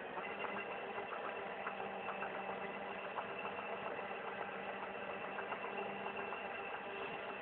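Tractor engine running steadily while it powers a Fliegl push-off trailer's overloading auger, with faint irregular ticks over the hum. One steady tone in the hum drops out about six seconds in.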